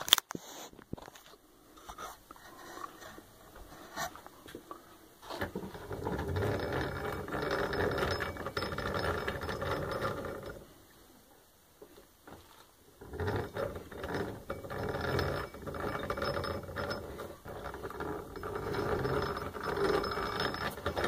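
Hand-cranked McCormick-Deering sickle blade grinder being turned, its cast-iron gear train and grinding stone running in two spells: from about five seconds in, a short stop, then again from about two-thirds of the way through.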